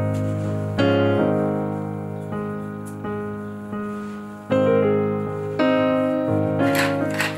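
Soft background piano music: chords struck about every second, each left to fade. Near the end a few short, crisp strokes join in.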